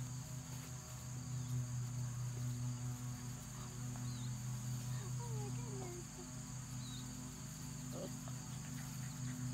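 Steady outdoor insect chorus with a constant high whine over a steady low hum. Around the middle, basset hound puppies give a few short, wavering whimpers.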